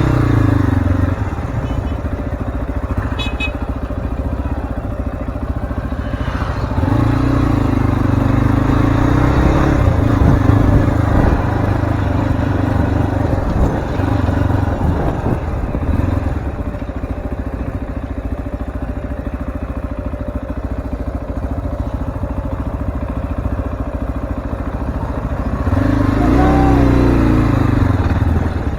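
Zongshen Cyclone RX3 motorcycle's single-cylinder engine running while riding over a rough off-road track. It grows louder with more throttle about a quarter of the way in and again near the end, with scattered knocks and rattles in the middle.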